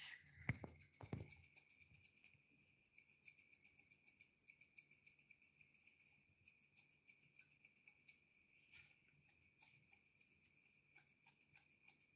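Grooming scissors snipping rapidly through a toy poodle's facial hair, several crisp snips a second in runs with short pauses. A steady faint high tone runs underneath.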